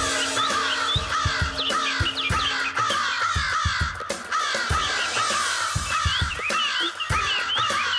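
Crows cawing over and over, several short falling calls a second that overlap like a small flock, over background music.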